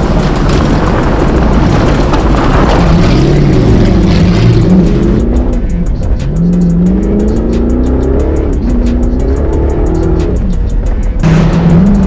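Rally car engine revving hard, its pitch climbing and dropping again and again through gear changes and lifts, over tyre and gravel noise. For about six seconds in the middle the sound turns muffled and dull before it comes back full.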